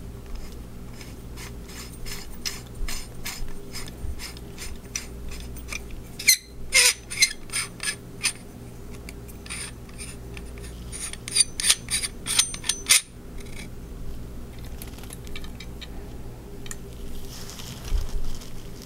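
Threaded metal parts of a Korbanth Parks K4 lightsaber hilt being screwed together by hand: runs of quick clicks and scraping from the turning threads, thickest in two spells around the middle. A soft low knock near the end.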